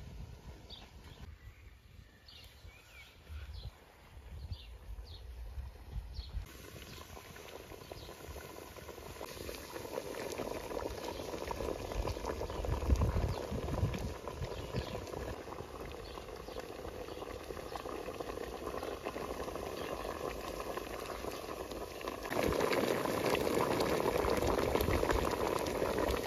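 Water boiling hard around chunks of pumpkin in a large aluminium pot, a steady bubbling that grows louder through the clip and jumps up about four-fifths of the way in.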